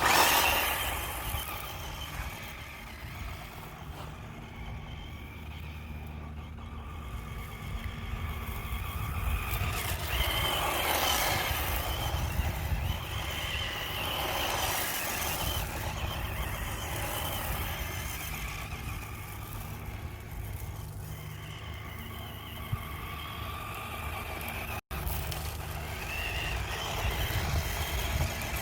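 Vintage Futaba FX-10 electric RC buggy driven around on sand: its motor whines, the pitch rising and falling with the throttle over a steady rushing noise.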